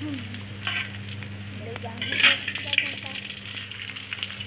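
Salted fish sizzling as it fries in a little oil in a wok, with a metal spatula scraping and clicking against the pan as the pieces are turned; the loudest scrapes come just after two seconds in. A steady low hum runs underneath.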